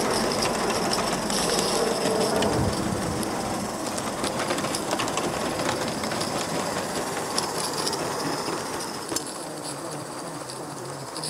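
Gauge 1 live-steam model trains running on garden track: a steady rolling rattle of small wheels over the rails, with scattered light clicks and a high hiss of steam. It eases somewhat near the end.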